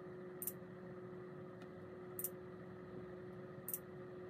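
Faint steady hum holding one constant tone, with three brief soft ticks spread across it.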